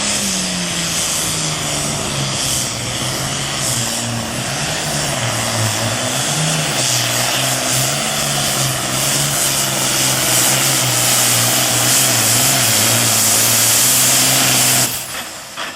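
Super farm pulling tractor's diesel engine running flat out under load as it drags the weight sled, its pitch holding steady with small wavers and a rough high rush over it. The sound cuts off abruptly near the end.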